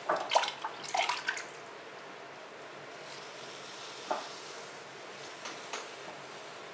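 Water splashing and dripping as a hand dips into a bucket of throwing water, a quick flurry over the first second and a half, followed by a few soft wet taps later on.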